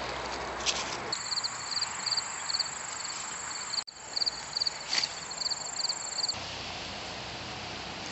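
Insect song: a steady high buzz with a regular chirp a few times a second, starting about a second in and cutting off abruptly a little after six seconds, with a brief rustle near five seconds.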